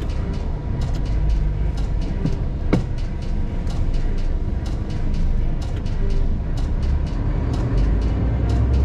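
Large truck's diesel engine running low and steady as it creeps along, heard from inside the cab, with frequent irregular clicks and rattles over the engine rumble.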